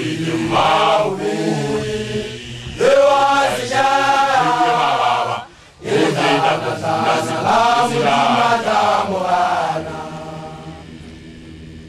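Men's voices chanting a Sesotho initiation-school song in long phrases, with two short breaks, the chanting dying away near the end.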